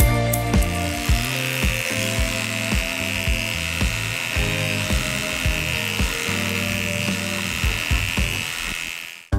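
Electric dog clipper buzzing steadily as it shaves through matted fur, starting about a second in and cutting off just before the end, under background music with a beat.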